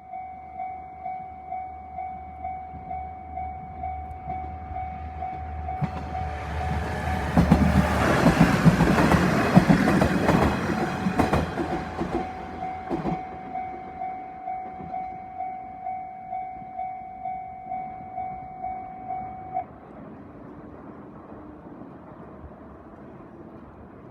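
Japanese level-crossing alarm ringing in a steady electronic bell tone, about one and a half strikes a second, while a diesel local train passes over the crossing. The train builds to a loud rumble with wheel clatter for several seconds in the middle. The bell stops a few seconds before the end.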